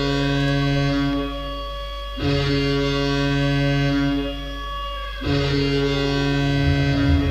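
Dinamo Riga's arena goal horn sounding three long chord-like blasts, each loud for about two seconds and then dropping in volume before the next, signalling a home goal. The goal song's beat begins near the end.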